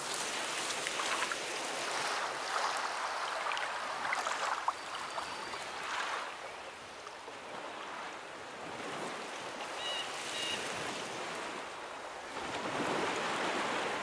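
Ocean surf: waves breaking and washing in, a rushing hiss that swells and eases every few seconds.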